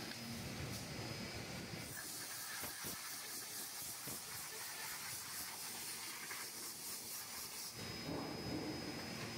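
A steady hiss of air that lasts about six seconds, set over a low machine hum that is heard on its own before and after it.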